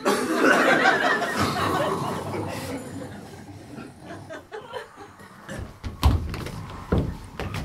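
Audience laughing, loudest at the start and dying away over a few seconds, followed by a couple of dull thumps near the end.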